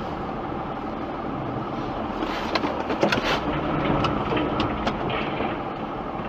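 Steady vehicle running noise, with a cluster of sharp clicks and rattles from about two to five seconds in.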